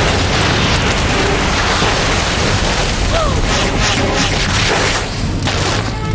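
Loud, continuous rumbling and crashing of a cartoon disaster sound effect, heavy in the low end, with a short falling whistle about three seconds in.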